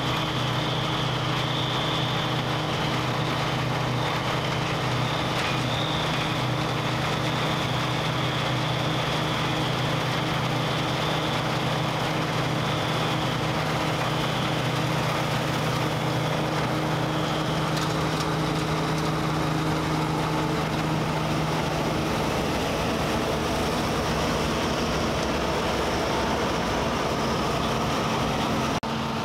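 Claas Dominator 98 SL combine harvester running steadily at work in wheat, a constant engine and machinery hum with a high whine that fades out a little past halfway. The sound shifts abruptly just before the end.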